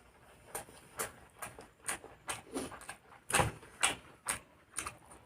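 Close-up chewing: short wet mouth clicks and lip smacks about twice a second as food is eaten, loudest a little past halfway.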